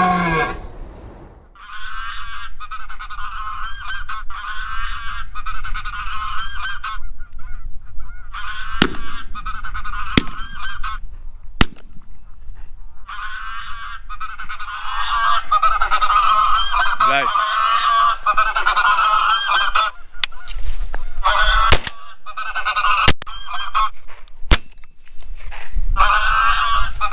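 Goose honking calls, greylag and Canada geese, in long chattering runs with short pauses. Several sharp knocks cut through them, the loudest two about 11 and 24 seconds in.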